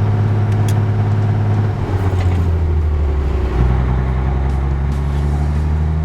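Vehicle engine running with the accelerator pressed while the rear wheels turn off the ground, its steady note shifting in pitch twice, about two and three and a half seconds in.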